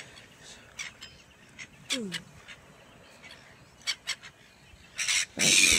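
Scattered bird calls in the early-morning quiet: short chirps and one falling call about two seconds in. Near the end comes a loud, harsh noise lasting about half a second.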